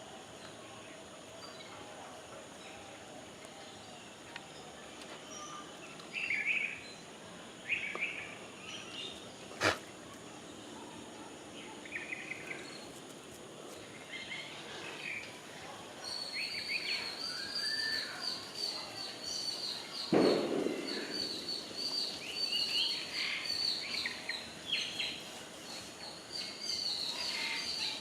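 Birds chirping outdoors, growing busier in the second half. A sharp click sounds about ten seconds in, and a short thump about twenty seconds in.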